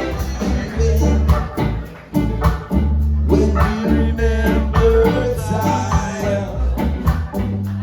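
Music with singing over a heavy bass line and a steady beat of light percussion.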